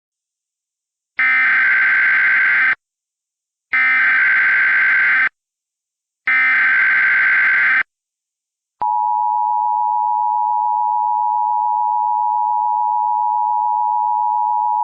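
Emergency Alert System SAME header: three digital header tones, each about a second and a half long with short gaps between. About nine seconds in, the steady two-tone EAS attention signal begins and holds.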